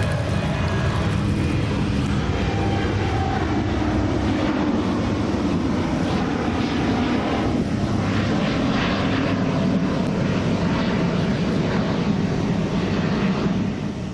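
Airliner passing low overhead: a loud, steady roar of jet engines with faint whining tones that shift in pitch.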